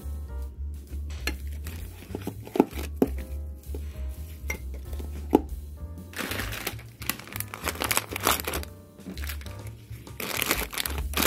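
Plastic food containers and packaging being handled and packed into a lunch bag. A few sharp plastic clicks come in the first half, then longer stretches of crinkling, with a bag of plantain chips crinkling near the end. Background music with a steady bass runs underneath.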